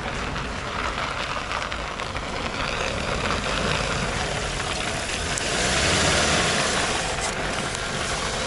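Ford Focus II engine running, a steady rushing noise that swells a little around the middle. No belt squeal stands out, the alternator belt being quiet with the heaters switched off.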